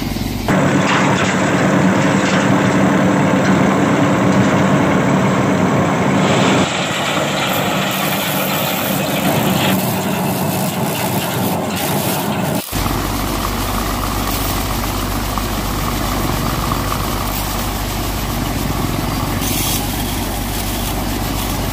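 Small electric motor of a homemade model thresher running steadily while dried plant stalks are fed through it. The steady hum changes character abruptly about half a second in, again about a third of the way through, and again past the middle.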